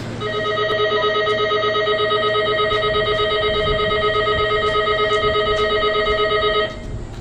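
Electric platform departure bell ringing continuously with a fast, even trill, then cutting off suddenly near the end.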